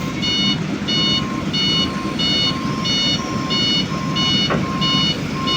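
Excavator's travel alarm beeping steadily about one and a half times a second over the low running of its diesel engine, the warning that sounds while the machine tracks along.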